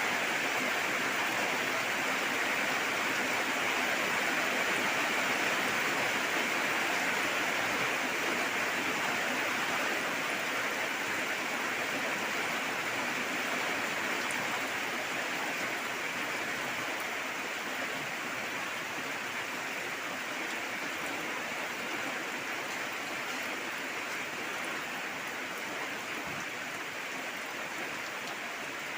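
Steady rain falling, a dense even hiss of drops with no distinct individual impacts, easing slightly in level over the second half.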